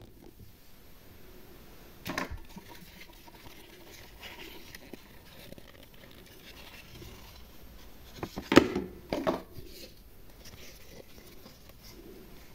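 Hard plastic parts of a toy mini kitchen knocking and clacking as they are handled and fitted together: a short clatter about two seconds in and a louder run of knocks about two-thirds through, with small clicks between.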